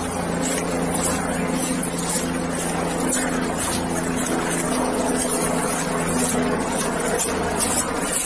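Footsteps in dry leaf litter, with a steady low engine-like drone.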